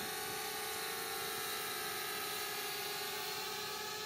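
Flitt foldable mini quadcopter's motors and propellers whining steadily as it hovers and turns slowly in place.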